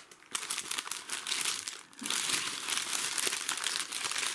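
Brown wrapping paper crumpled and crinkled by hands as it is pulled off a parcel, in spurts with short lulls just after the start and about two seconds in, then steady crinkling.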